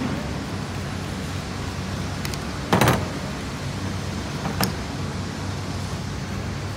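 Metal-on-metal clicks as the gear head of a mini angle grinder is unscrewed and handled with a screwdriver: one sharp knock about three seconds in and a smaller click nearly two seconds later, over a steady low hum.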